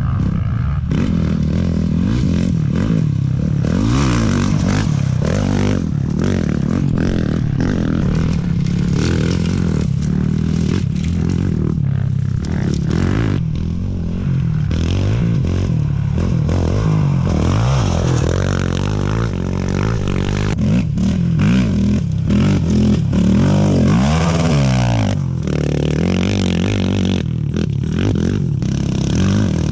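Off-road racing motorcycle and quad engines revving hard and passing by several times, the pitch rising and falling with each pass, with scraping and clattering mixed in.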